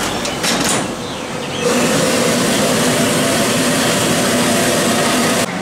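Stainless-steel food steamer cabinet running: a steady loud rushing of steam and burner with a low hum, after a few light clatters in the first second. It cuts off abruptly near the end.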